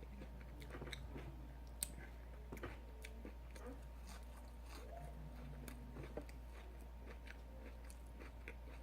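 Close-miked chewing: quiet, irregular crunches and wet mouth clicks of someone eating fried food, over a faint steady low hum.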